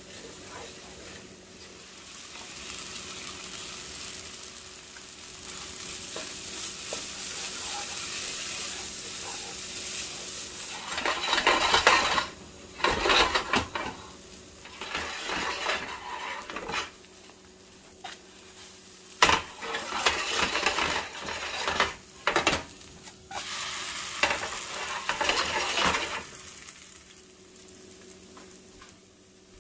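Food sizzling in a frying pan with a steady hiss, then a utensil stirring it, scraping against the pan in uneven bursts for about fifteen seconds before the stirring stops.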